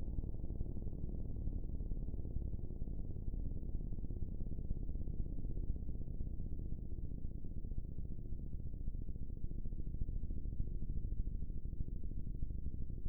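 Synthesized simulation of an ACA Hurricane 130 siren made from sawtooth waves, in its slow wind-down: a low tone sinking gradually in pitch.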